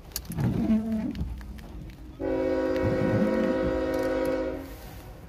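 Diesel locomotive air horn sounding one long blast of about two and a half seconds, a steady chord of several notes that starts and stops sharply. A shorter wavering pitched sound comes about half a second in.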